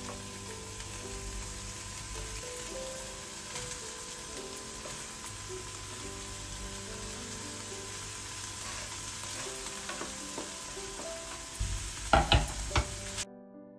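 Food sizzling in a hot non-stick frying pan as diced onion and vegetables are scraped in and stirred with a wooden spatula. Near the end there are a few sharp knocks.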